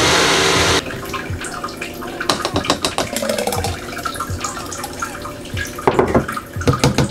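Ninja personal blender's motor running, cutting off suddenly just under a second in. Then a thick green smoothie glugs and splashes as it is poured from the blender cup into a glass jar, with clicks and a few sharper knocks of the plastic cup against the glass near the end.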